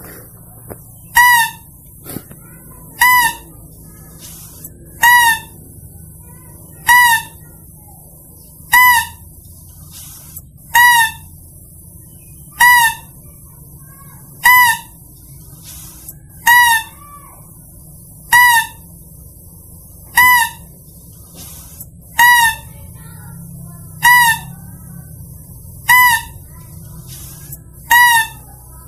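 Lesser mouse-deer (kancil) lure call: a short, high-pitched call with a slight hook in pitch, repeated evenly about every two seconds.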